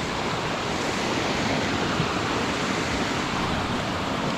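Steady rush of fast-flowing water from a mountain creek running high after rain.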